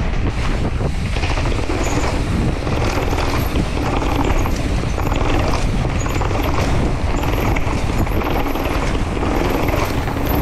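Mountain bike rolling fast over paving and down concrete stairs: a continuous clattering of tyres knocking on each edge and the chain and frame rattling, over a steady low rumble.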